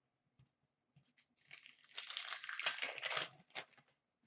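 A trading-card pack wrapper being torn open and crinkled: a dense rustle lasting about two seconds, then a few short crackles.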